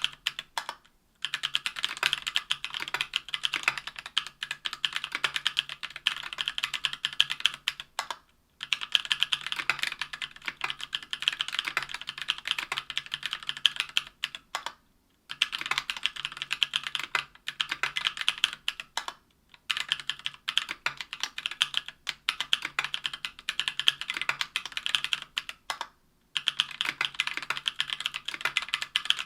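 Steady typing on a mechanical keyboard with stock, unlubricated Durock Anubis 65 g tactile switches in a Tofu 60% aluminium case with an aluminium plate and GMK keycaps: fast runs of clacky keystrokes, broken by brief pauses about five times.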